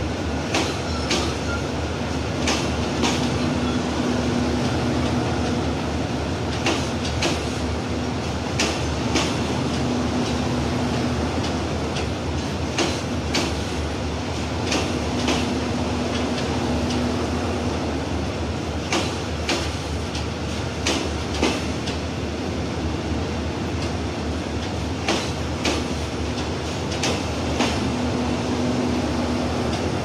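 Passenger coaches of an express train rolling slowly past on the rails with a steady rumble. The wheels click in pairs over the rail joints every couple of seconds as each bogie passes, and a low hum fades in and out.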